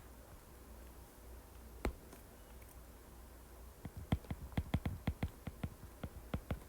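Computer keyboard being typed on: one click about two seconds in, then a quick run of key clicks, about five or six a second, from about four seconds in.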